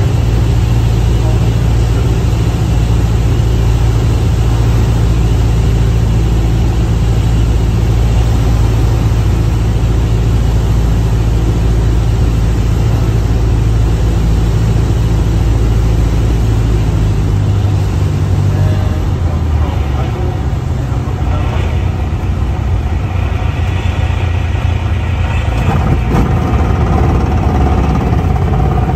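Cessna 172SP's four-cylinder Lycoming engine and propeller at full power for takeoff and climb-out, heard from inside the cabin as a loud, steady drone. Its low note shifts about two-thirds of the way through.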